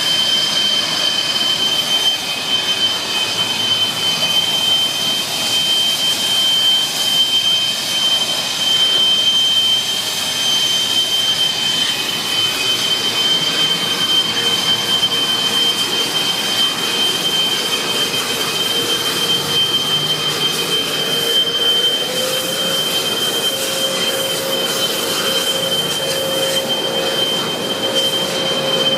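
Car wash vacuum system running with a loud, steady high-pitched whine over a rushing hiss; a lower hum joins about three-quarters of the way in. The uploader calls it faulty equipment.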